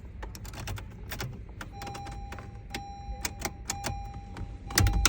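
Quick metal clicks and rattles of a newly cut key being worked and jiggled in a 2020 Honda Accord's lock, a key that won't turn all the way. A steady faint beep-like tone joins about a second and a half in, and a louder low rumble comes near the end.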